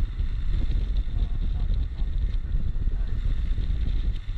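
Royal Enfield Himalayan motorcycle on the move: wind rumbling on the rider's microphone over the engine and road noise, steady throughout.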